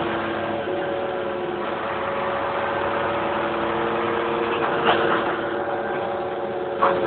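A vehicle engine idling steadily, with an even hum holding a few steady tones. Two short sharp knocks come about five and seven seconds in.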